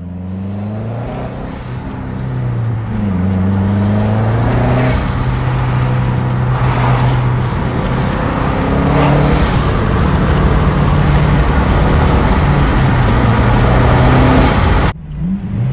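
2008 MazdaSpeed 3's turbocharged 2.3-litre four-cylinder, fitted with a Cobb SF intake, heard from inside the cabin as the car accelerates under boost. The engine note rises and drops with gear changes in the first few seconds, then holds steadier over road noise, and cuts off abruptly near the end.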